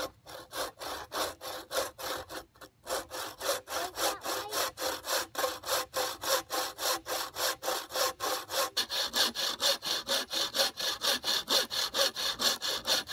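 Handmade buck saw, its frame cut from natural wood, sawing through a sassafras stick in quick, steady back-and-forth strokes, about four a second, after a few short pauses near the start.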